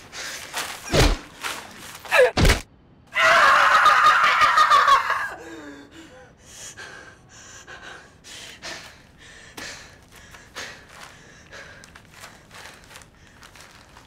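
Two heavy thuds about a second and a half apart, then a woman's long, harsh scream, followed by her ragged gasping breaths.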